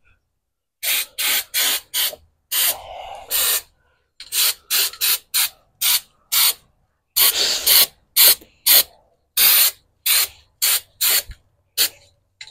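Undercoating sprayed in about two dozen short hissing bursts, each under half a second and one a little longer, as light coats go onto the underside of a truck bed.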